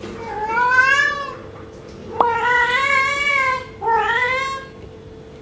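Cat meowing loudly three times in long, drawn-out calls that rise and then fall in pitch, the second call the longest. The cat is yowling to be fed.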